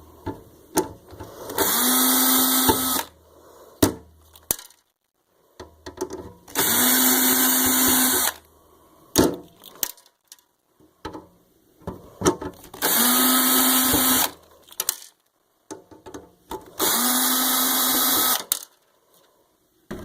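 Small power drill running in four short bursts of about a second and a half each, with clicks and handling knocks between them.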